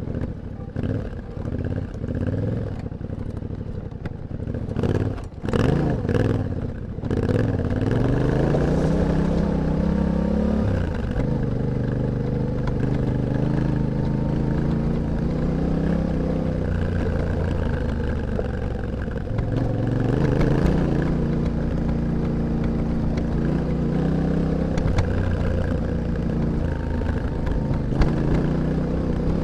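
Yamaha Ténéré 700's parallel-twin engine and exhaust under way, heard close to the exhaust. In the first seconds there is uneven running with some knocks. The engine then pulls up in pitch and drops with a shift, settles to a steady cruise, and pulls up and drops once more about two-thirds through.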